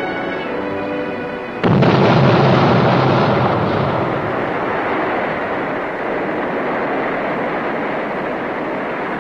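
Orchestral music cuts off about a second and a half in, replaced by a sudden, loud, unbroken din of gunfire and explosions.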